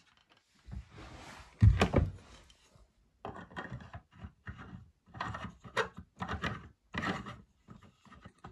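Monitor stand stem and base being handled and fitted together: a heavy knock about two seconds in, then a run of short scraping rubs.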